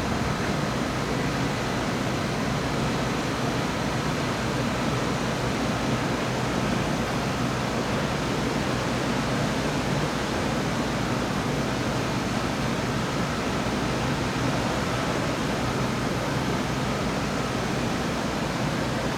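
Heavy rain falling during a thunderstorm: a steady, even hiss with no thunderclap.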